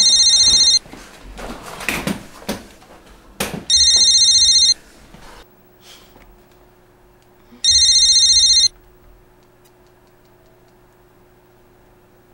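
Telephone ringing three times. Each ring is about a second of rapid electronic trill, coming roughly every three and a half to four seconds.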